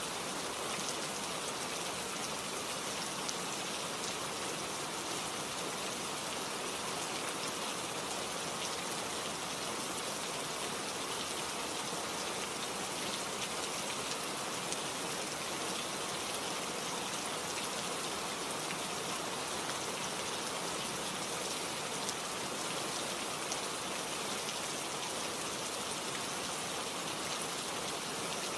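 Steady rainfall, a dense even patter of drops on surfaces with scattered sharper drop ticks.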